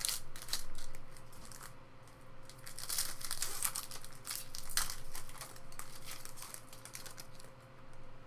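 Foil trading-card pack wrapper crinkling as it is torn open by hand and the cards are slid out. The crackling comes in irregular bursts, heaviest in the first second and again around three to five seconds in, then dies down.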